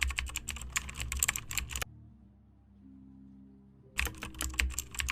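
A quick, irregular run of light clicks or taps, in two spells separated by about two seconds of near silence.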